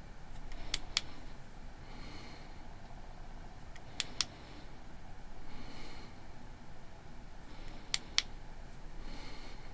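Three double clicks, each pair about a quarter second apart and spaced a few seconds apart, from the Boruit V30 flashlight's switch being pressed, with soft breathing through the nose between them.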